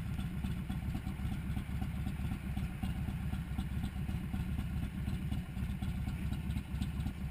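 Motorcycle engines idling steadily, a low even rumble with no revving.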